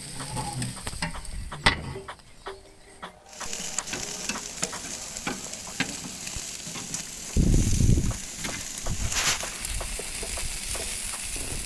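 Chicken and turkey wings sizzling on a barbecue grill, a steady hiss full of crackles and pops. The sizzle drops back for about a second early on, and a brief low rumble comes about seven and a half seconds in.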